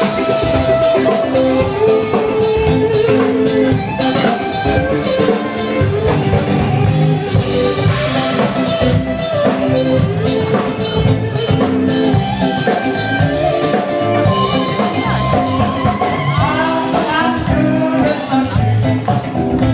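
Live rock band playing on an outdoor street stage, with singing over the band, loud and steady.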